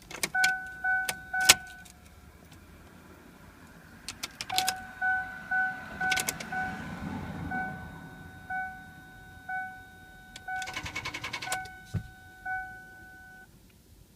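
2002 Ford Explorer's ignition failing to start the engine: single clicks as the key is turned and about a second of rapid clicking near the end, with no cranking. A warning chime dings repeatedly throughout. The owner suspected the battery, but a replacement starter did not cure it.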